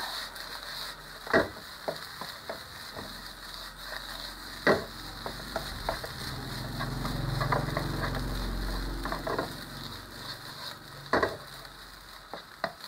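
Fried rice with shrimp and squid sizzling in a hot non-stick wok as it is stirred and tossed with a spatula, with a steady sizzle, small scraping clicks, and a few sharp knocks of the spatula against the pan. A low rumbling swell rises and fades midway.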